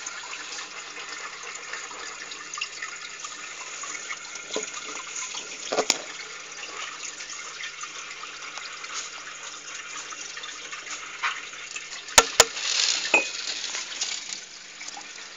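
Aquarium water bubbling and splashing steadily, with a few short clicks; two sharp clicks close together about three-quarters of the way in are the loudest sounds.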